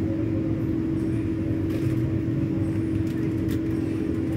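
Vande Bharat Express train running slowly into the platform: a steady low rumble with a constant hum running under it.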